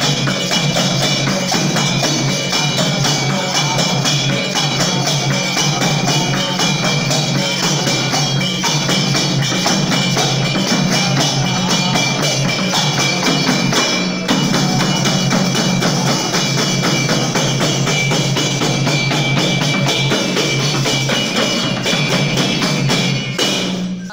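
Nepali devotional bhajan played by a small group: a madal barrel drum and a small hand drum beat a fast, steady rhythm under the jingling of a brass jingle ring and hand clapping, with men singing along. The music cuts off abruptly at the very end.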